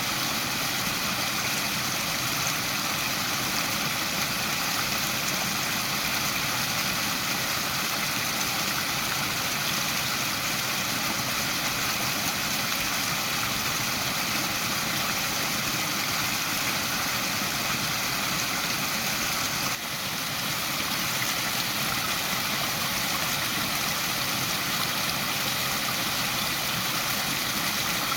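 Waterfall: a steady rush of falling water, with one brief dip in level about twenty seconds in.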